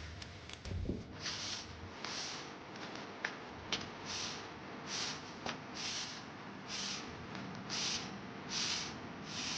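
Rhythmic scraping strokes of a hand tool over the ground, a little over one a second, with a few sharp clicks of stone or grit.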